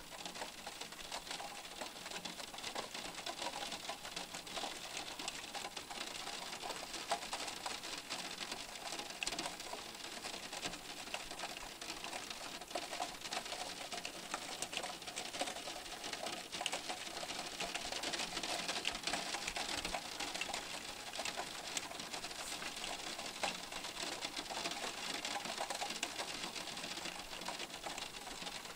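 Steady rain falling, a dense patter of many drops ticking and tapping without letup.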